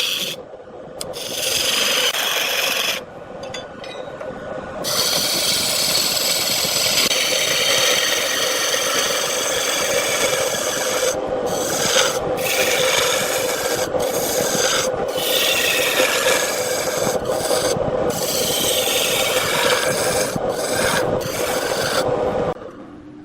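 Wood spinning on a lathe with a turning tool held against it: a steady scraping rasp over a constant hum, broken by several short gaps as the tool lifts off. The scraping stops shortly before the end.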